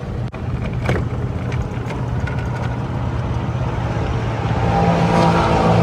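A motor vehicle's engine running steadily at a constant pitch, growing louder from about four and a half seconds in, with a few light clicks about a second in.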